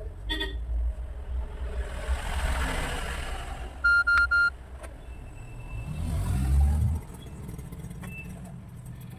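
Itel ACE 2N phone giving three quick high-pitched beeps about four seconds in: its charging error beep. Road traffic rumbles throughout, swelling loudly as a vehicle passes a couple of seconds after the beeps.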